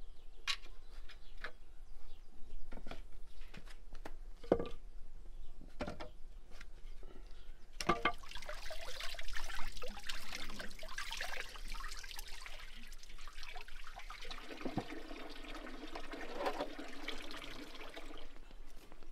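Water gushing from a hose onto a raw beef bone as it is rinsed by hand, splashing into a metal basin. It starts suddenly about eight seconds in, after a stretch of scattered knocks and scrapes.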